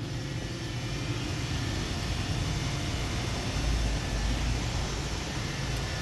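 iRobot Roomba 960 robot vacuum running across a tile floor, its vacuum motor and brushes giving a steady whirr. The seller calls it very quiet, as a low-hours unit whose vacuum motor has not yet dried out and started to squeal.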